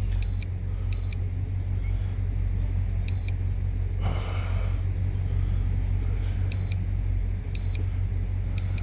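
1997 Suburban engine idling with a steady low rumble, while a handheld scan tool gives short high beeps as its buttons are pressed, six times at uneven intervals. A brief rushing noise comes about four seconds in.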